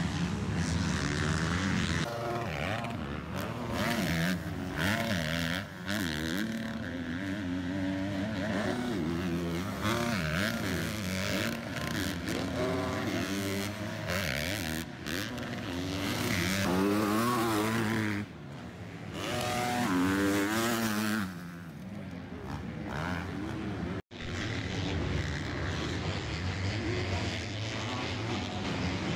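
Several motocross bikes racing on the track, their engines revving up and dropping away again and again as they pass. The sound cuts out for an instant a few seconds before the end, then carries on.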